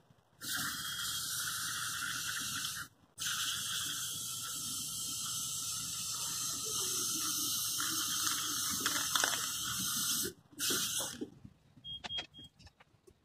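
Valspar aerosol spray paint can spraying in three runs of steady hiss: one of about two and a half seconds, a long one of about seven seconds, then a brief puff. A few light clicks follow near the end.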